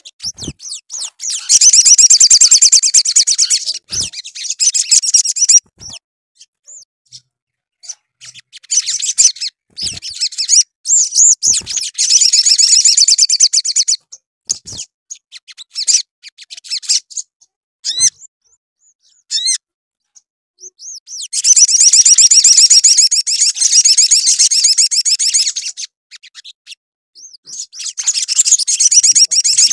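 Sunbird (sogok ontong) singing: long, rapid, high-pitched trilled phrases of several seconds each, four main bouts, with short single chips between them.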